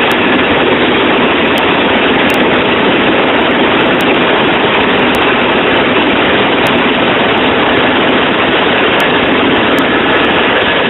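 Helicopter in flight, a loud, steady noise of engine and rotors with no change in pitch or level.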